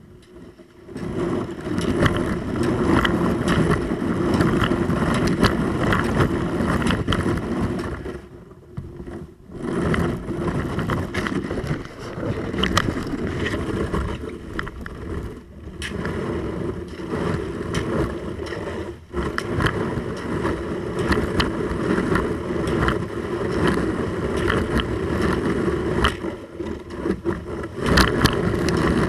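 Kayak hull pushing through thin skim ice: a continuous crunching, crackling and scraping of breaking ice, with a few brief lulls.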